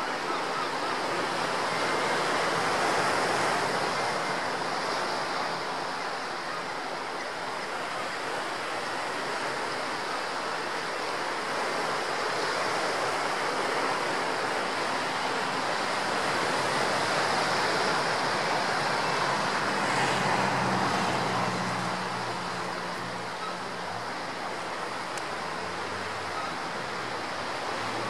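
Steady rushing noise of wind and sea, with a faint low engine hum joining about two-thirds of the way through.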